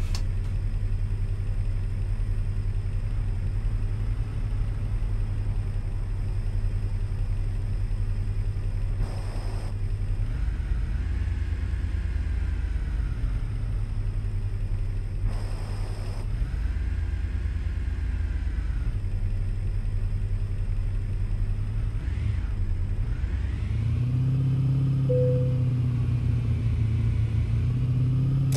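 Car engine and road noise while driving, a steady low drone heard from inside the cabin, with other traffic passing now and then. The engine note grows stronger a few seconds before the end, and a single short beep sounds about 25 seconds in.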